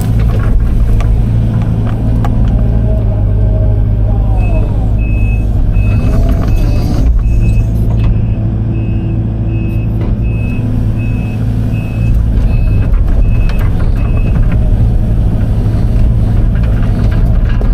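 Excavator's diesel engine running under load, heard from inside the cab, with the hydraulics whining as the machine works. From about four seconds in to about fourteen seconds in, a backup alarm beeps steadily, about one and a half beeps a second.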